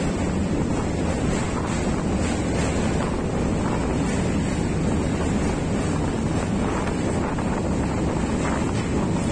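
Passenger train running along the track: a steady rumble of wheels on rails with wind buffeting the microphone and faint irregular clicks.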